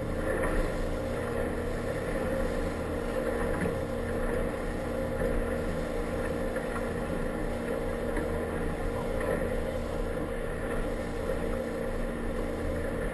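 Inflatable motorboat's engine running steadily under way, with water rushing along the hull.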